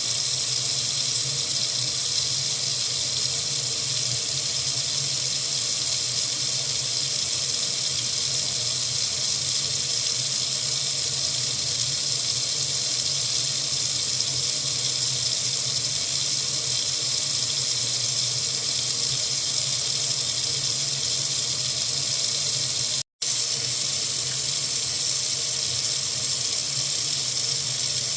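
Water running steadily from a faucet into a sink, an even hissing splash. The sound drops out for a split second about 23 seconds in, then continues unchanged.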